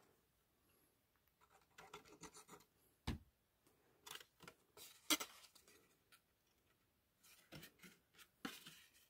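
Faint rustling and rubbing of cardstock as a paper box lid's glued corner tabs are folded and pressed, with a sharp tap about three seconds in and another about five seconds in.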